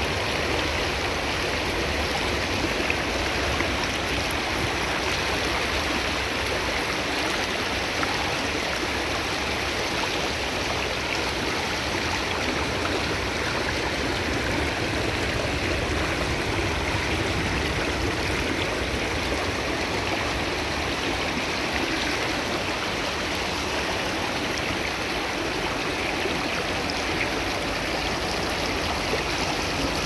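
Shallow, rocky creek running steadily, its water rippling over stones and through a snag of sticks.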